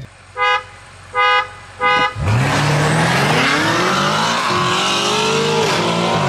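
A car horn toots three times in quick succession. Then a BMW M5 F90's twin-turbo V8 accelerates hard, its pitch climbing and dropping at each upshift.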